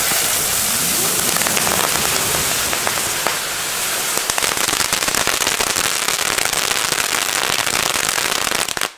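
Chili-Spinner firework burning on a post: a steady loud hiss thick with rapid crackling, breaking into a few separate cracks as it burns out at the very end.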